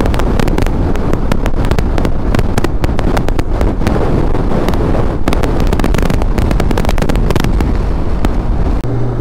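Motorcycle riding at road speed: wind buffeting the microphone in rapid irregular crackles over the low drone of the engine. A steady low hum comes in near the end.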